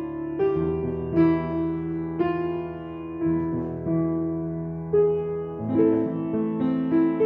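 Piano playing a slow song introduction, chords struck about once a second and left to ring.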